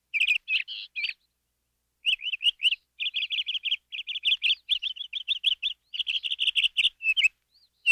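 Domestic canary singing in quick trills of rapidly repeated notes. A short burst, a pause of about a second, then a long run of fast trilled phrases that stops near the end.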